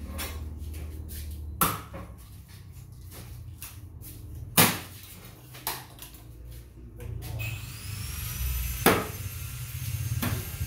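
A few sharp hammer knocks, about four in all and loudest about halfway through, over a steady low hum. A faint rising whine comes in during the last few seconds.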